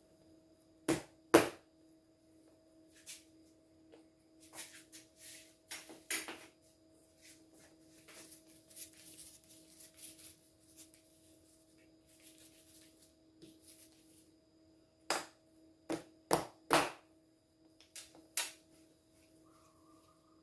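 Sharp taps and knocks on a work table as dough is handled, scattered with a cluster of several in quick succession near the end. In the middle come soft swishing strokes of a pastry brush spreading fat over the dough, over a steady low hum.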